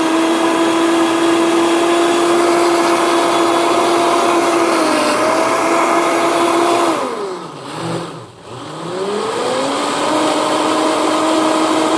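Vitamix personal blender running, puréeing soaked cashews and water into a smooth cashew cream. About seven seconds in the motor winds down with a falling pitch, then spins back up and runs steady again.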